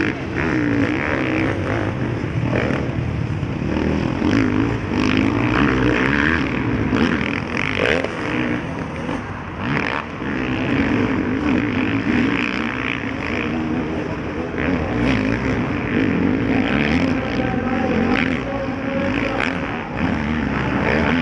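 Several motocross bikes racing around a dirt track, their engines revving up and down without a break as riders throttle through the corners.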